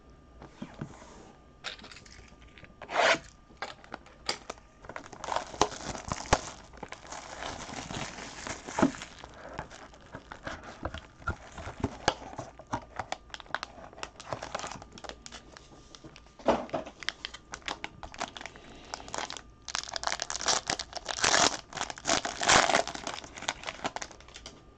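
A trading-card box being opened and its foil-wrapped pack torn open by hand: irregular rustling, crinkling and tearing of foil and cardboard, with a few sharp crackles and a dense burst of crinkling near the end.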